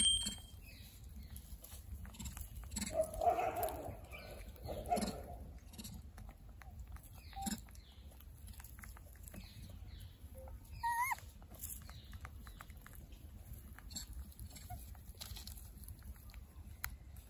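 Baby rhesus macaque picking nuts and popcorn from a hand and chewing them, with soft crunches and small clicks. Animal calls come from the background: a louder one about three to five seconds in and a short chirp-like call about eleven seconds in.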